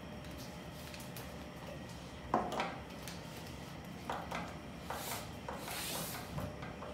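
Knocks and rubbing of plastic tubing being handled: the corrugated hose of a Bain coaxial breathing circuit being checked along its length. The loudest knock comes about two and a half seconds in, with more clatter and rubbing in the second half.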